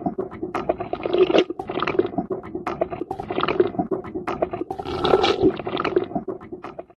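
Cattle eating feed: irregular wet crunching and munching with rustling of the fodder, swelling and easing in clusters, stopping suddenly near the end.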